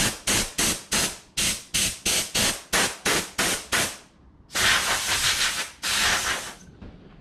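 Compressed-air blow gun giving short puffs, about three a second, to blow dust out of a Husqvarna 555 chainsaw's air filter. After a brief pause, near the end, come two longer blasts of about a second each.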